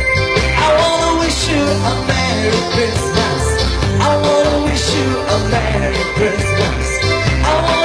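A man singing into a microphone over a live rock-style band with electric guitar and drums keeping a steady beat.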